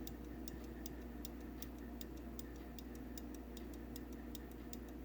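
Antique fusee pocket watch movement ticking, with its back open and the movement tilted out while it runs. The ticks are faint, quick and even, several a second.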